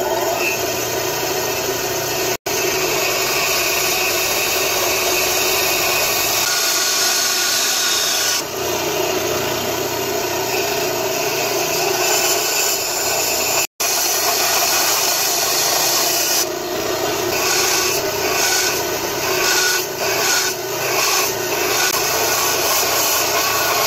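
Bandsaw running and cutting through a block of zelkova wood for a knife handle: a steady sawing hiss over the motor's hum. The sound drops out for an instant twice, and in the later part it comes in uneven surges as the block is fed and turned.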